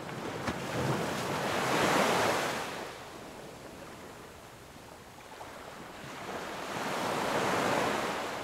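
Ocean waves, a steady rush of surf noise that swells twice: once about two seconds in and again near the end.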